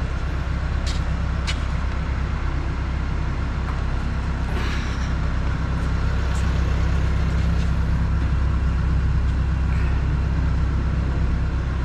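A steady low engine drone, like a vehicle idling, with a few light clicks and knocks over it. It grows slightly louder about halfway through.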